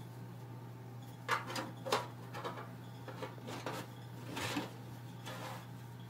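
Scattered rustles and light knocks from hands moving a plush toy across a fabric quilt and handling the recording phone, over a steady low hum.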